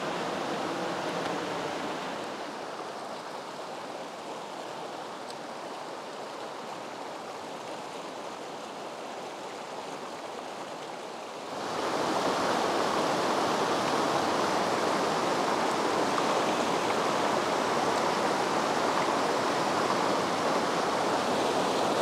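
Mountain stream rushing over rocks, a steady hiss of flowing water that steps up suddenly to a louder rush about halfway through.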